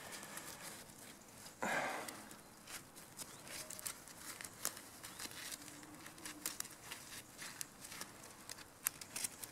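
Faint crackling and rustling of gloved hands twisting and working green sarsaparilla vine stems into cordage, with small scattered clicks and one brief louder burst about two seconds in.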